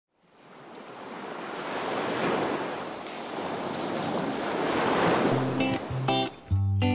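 Surf washing in on a sandy beach: a rushing wash of water that fades in and swells over several seconds. About five seconds in, music starts with short plucked notes.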